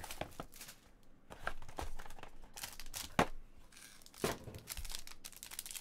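A trading card pack wrapper being torn open and crinkled, with scattered sharp clicks as the cards are handled; the loudest clicks come about three and four seconds in.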